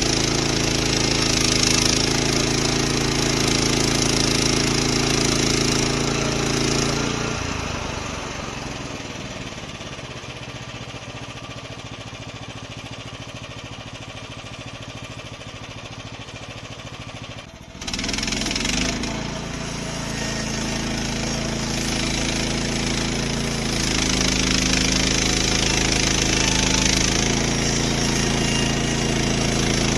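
Portable sawmill running and cutting: a steady engine note with a loud, hissing cutting noise. About seven seconds in it falls away to a much quieter sound, then comes back suddenly about eighteen seconds in and carries on.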